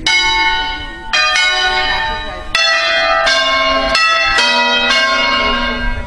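Five hand-rung church bells of a set tuned in B, swinging up and striking one after another, about seven strokes. Each stroke keeps ringing into the next, so the tones of different bells overlap.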